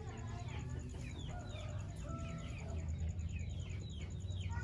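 A flock of chickens calling: many short, high, falling cheeps overlapping throughout, over a steady low rumble.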